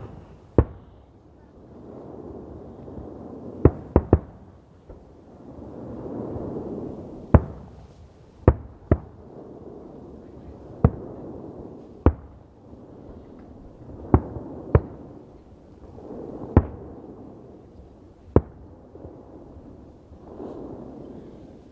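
Fireworks going off: about a dozen sharp bangs at irregular intervals, one to three seconds apart, with a softer murmur swelling and fading between them.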